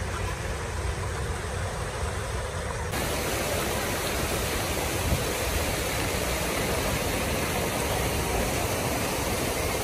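Water from a large fountain's many jets splashing and falling into the pool, a steady rushing that sets in about three seconds in, over a low rumble.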